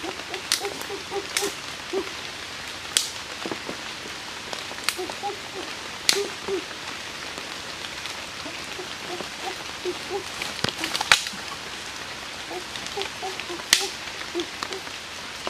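Scattered sharp snaps and cracks, about eight of them, from a wooden stick striking and breaking twigs in dry forest-floor litter, over a steady background hiss.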